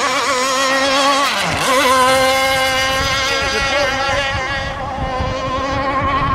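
Two-stroke gas engine of a radio-controlled rigger racing boat running at speed, a high buzzing note. The pitch wavers, dips briefly about a second and a half in, then recovers and holds steady.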